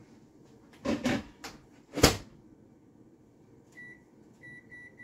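Microwave oven being loaded and shut: short handling knocks, then the door closing with a sharp clunk about two seconds in, the loudest sound. Near the end come four short, high keypad beeps as a cooking time is entered.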